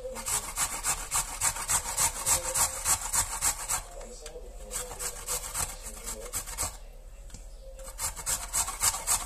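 Food being grated by hand on a grater: quick rasping strokes, about four or five a second. They ease off in the middle and pick up strongly again near the end.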